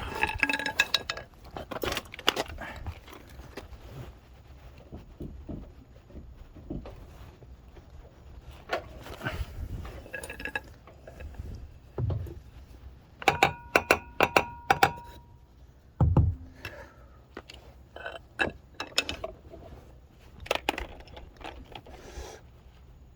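Scattered metal clinks and knocks, a few ringing briefly, as metal objects are handled and set down; a quick run of ringing clinks comes a little past halfway.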